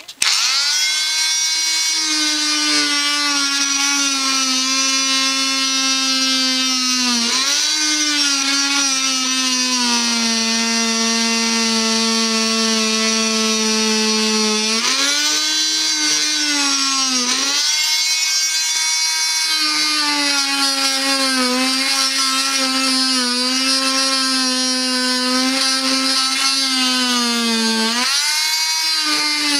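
Renovator 250-watt oscillating multi-tool running with a steady high whine, the pitch sagging and recovering several times as its round segment saw blade bites into a weathered wooden board.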